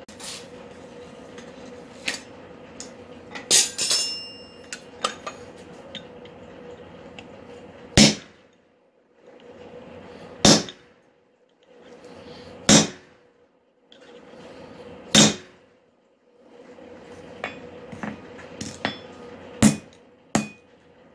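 Hammer striking metal on an anvil while forging: a few ringing clinks early, then single loud blows about every two and a half seconds, with quicker lighter taps before the last two, over a steady hum.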